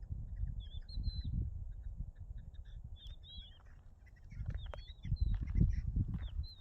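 Faint, short, high wavering whistled calls of partridges, several separate calls heard far off, as a scattered covey of young partridges and their mother call to regroup. A louder, uneven low rumble runs underneath.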